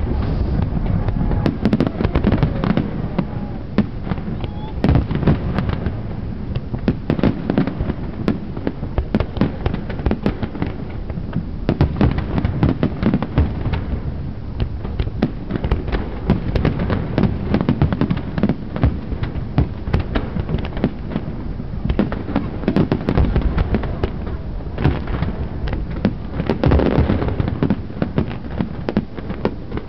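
Aerial fireworks display going off: a dense, continuous run of bangs and crackles, many a second.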